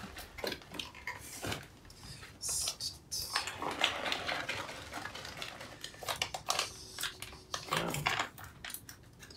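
Irregular clicks, knocks and rustling from a plastic bottle of latex tubeless tire sealant being handled and readied for pouring into a tire.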